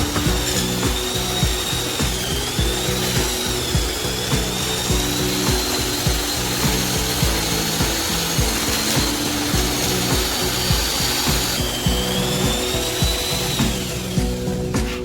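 A power tool's high whine, wavering slightly in pitch and stopping near the end, over background music with a steady beat.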